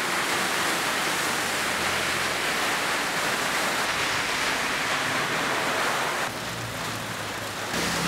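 Heavy typhoon rain and wind making a steady rushing noise. A little past six seconds it eases slightly and a low engine hum comes in under it.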